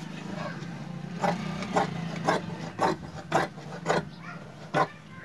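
Tailor's scissors snipping through dress fabric along a chalk line, seven crisp cuts about two a second, starting about a second in.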